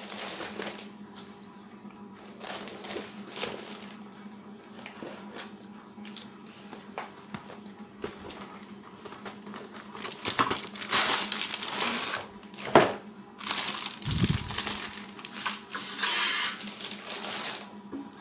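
Cardboard fan box and packaging being handled and rustled as a ceiling fan blade is taken out, with scattered knocks; the rustling gets busier and louder in the second half, with one sharp click and a short low thump.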